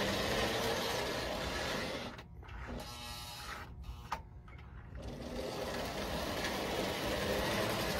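Postwar Lionel 2333 Santa Fe F3 diesel pair running on O-gauge track: a steady mechanical whir of the motor and gears with the wheels rolling on the rails. It turns quieter for a few seconds in the middle, then comes back.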